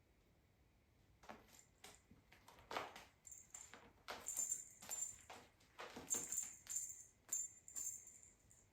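Small bell jingling in irregular shakes, with soft knocks between them.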